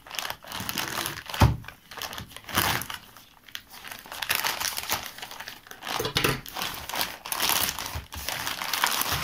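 Plastic courier mailer bag being torn open and crinkled by hands, an irregular rustling and crackling of thin polyethylene, with a sharp knock about a second and a half in.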